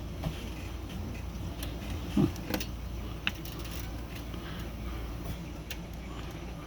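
A few small clicks and knocks of metal typewriter parts being handled as the platen knob of an Olympia SG-3 is worked onto its shaft, with one louder knock about two seconds in. A low steady hum runs underneath.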